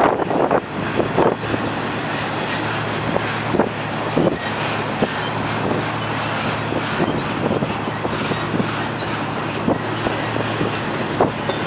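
Freight train cars rolling past steadily, with the wheels knocking over rail joints at irregular intervals over a constant low hum.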